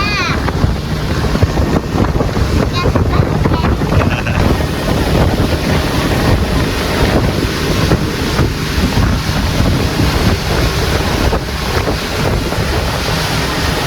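Wind buffeting the microphone over the steady low rumble of a tour boat's engine under way on the river.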